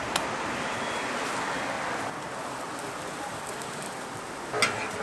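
Hot oil sizzling steadily as jeon (Korean pan-fried pancakes) fry. There is a sharp click just after the start and a louder knock near the end.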